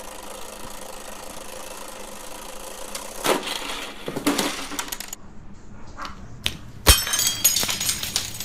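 Perfection board game's spring-loaded tray popping up with a sudden clack, about three seconds in, and its plastic shape pieces clattering out. A louder sudden crash with a second of clinking, ringing clatter comes near the end.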